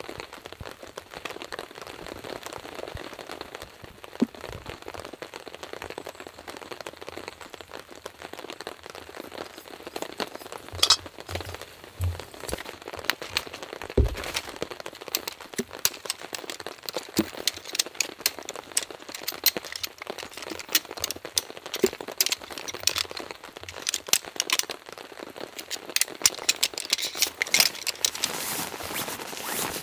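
Sectioned tent poles being pulled apart and folded, the pole sections and metal ferrules clicking and clacking together, more often in the second half, with one heavier knock about halfway. A steady patter of rain runs underneath.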